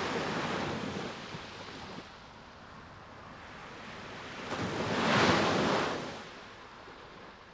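Sea waves breaking and washing over a shingle beach. One wash of surf at the start, then a bigger wave that swells to a peak about five seconds in and fades away.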